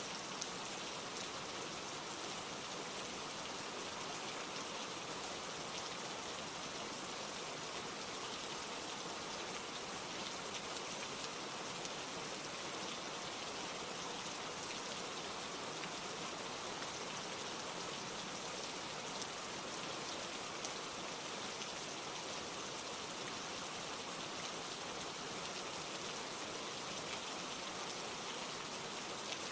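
Steady rain falling, with the fine patter of drops hitting surfaces.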